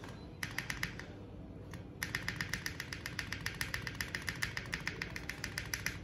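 Keys of a Tofu 65 mechanical keyboard with freshly fitted CMK keycaps being pressed down in quick succession, seating the caps on the switches. A short burst of about six clacks comes first, then a steady rapid run of clacks at about ten a second.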